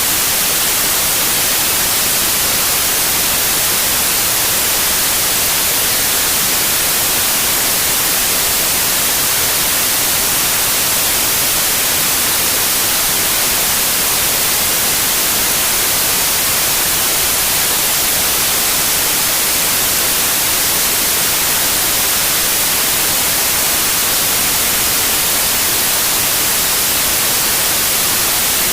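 Steady white noise: an even, unchanging hiss that is strongest in the high frequencies.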